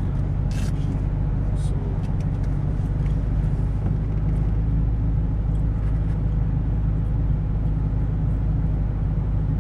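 Steady low drone of a Ford Mustang's engine and tyres, heard from inside the cabin while cruising.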